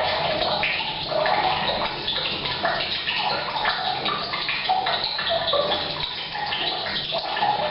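Tap water pouring from a pipe into a water tank, mixed with rain on the roof, making a steady splashing that echoes in a bathroom.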